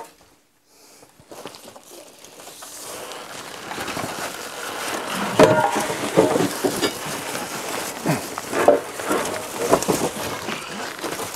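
Packing material being handled: plastic wrap crinkling and broken styrofoam rubbing and squeaking against cardboard as a heavy motor is worked out of its shipping box, with scattered knocks. The rustling builds after a quiet first second, and the squeaks come thickest in the middle.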